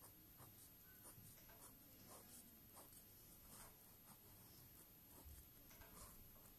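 Faint scratching of a pen drawing on a paper planner page, in a series of short, irregular strokes.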